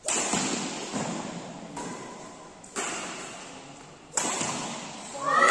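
Badminton rackets striking a shuttlecock in a rally, a string of sharp hits roughly a second or so apart, each ringing on in the hall's echo. A voice calls out at the very end.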